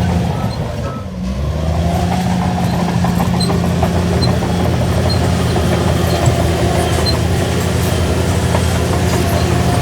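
Shantui DH17C3 bulldozer's diesel engine running steadily while pushing soil, its note dipping briefly about a second in and then picking back up.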